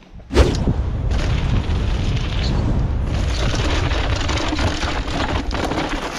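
Wind rumbling and buffeting on a camera microphone carried on a mountain bike at speed, with scattered knocks from the bike over rough ground. It starts suddenly and stays loud throughout.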